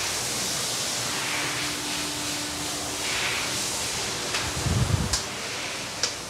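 Steady hissing workshop room noise, with a brief low rumble just before five seconds in and a few sharp clicks, the clearest one about six seconds in.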